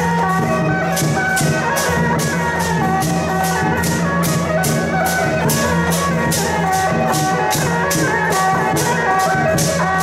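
Loud music with a steady, fast beat of sharp percussion strikes, about four a second, under a high melody line that moves in steps.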